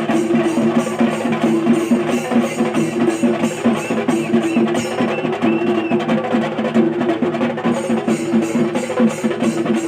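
Shinkari melam: a Kerala ensemble of chenda drums played in a fast, driving, steady rhythm, with ilathalam hand cymbals striking evenly on the beat.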